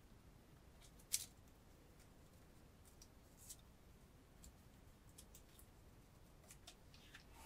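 Faint rustles and light ticks of a strip of office paper being handled and slid into a small wooden clamp, with one sharper click about a second in.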